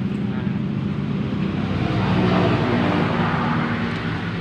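Motor vehicle engines running close by, a steady low hum, with a rush of noise swelling about two seconds in as one passes.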